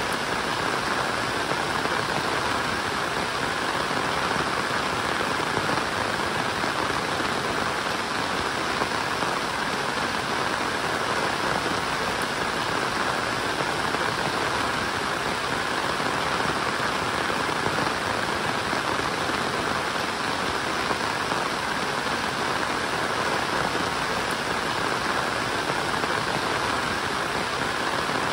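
Steady, heavy rainfall: a dense, even patter with no letup.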